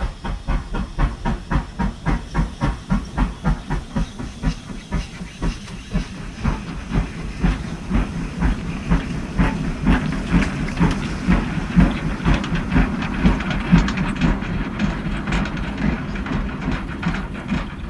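Steam locomotive chuffing at a steady rhythm, about three exhaust beats a second, with steam hissing throughout.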